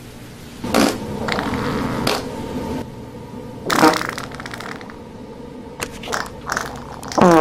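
A string of fart sound effects: a long fart starting about a second in, a shorter one near the middle, a few quick short ones, then a loud one near the end.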